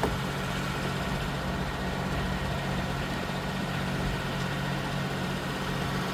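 An engine idling steadily, a low even hum with no change.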